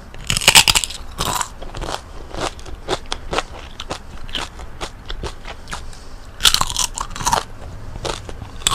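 Close-miked crunching of fried chicken-skin chicharon being bitten and chewed. There are two loud crackling bites, about half a second in and about six and a half seconds in, with smaller crunches of chewing between them.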